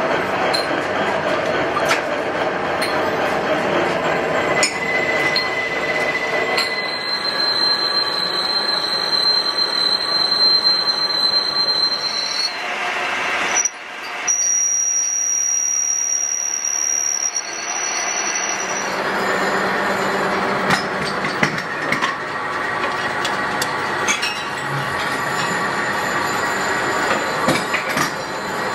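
Metal lathe running while its tool cuts the end of a steel tube, with a high steady squeal from the cut: one tone from about 7 to 12 seconds in, then a higher one from about 14 to 19 seconds. A few light metal clinks sound over it.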